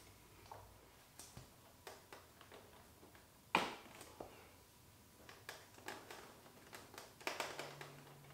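Kawasaki ZX-4RR's plastic side fairing being handled and pressed into place, giving light scattered clicks and taps and one sharp click about three and a half seconds in as a tab or connector seats.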